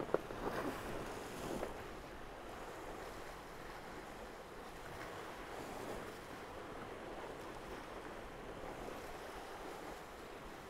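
Steady rush of water and wind aboard a Tornado racing catamaran under sail, with a few sharp knocks in the first couple of seconds.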